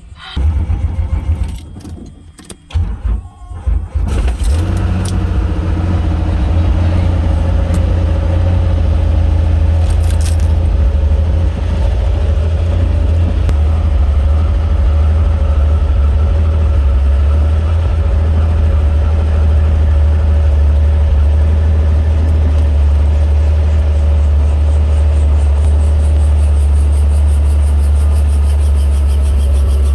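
Helicopter running, heard from inside the cabin with the front doors off: a loud steady low rumble of rotor and engine with a faint steady hum above it. Over the first few seconds there are scattered bumps and knocks, and then the rumble comes up to full strength.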